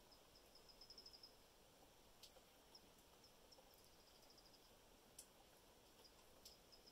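Near silence. A faint, distant small songbird gives a high series of notes that speed up into a short trill, twice, and starts a third time near the end. A few faint sharp ticks fall in between.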